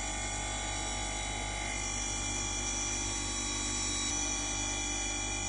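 JN Quality C9340-G-W brake disc grinder running, its diamond grinding wheels wet-grinding a brake disc face under coolant water: a steady whir with several steady tones over an even noise.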